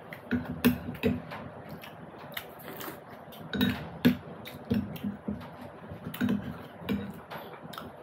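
Close-up eating sounds: chewing and mouth noises with irregular small clicks and light clinks of dishes.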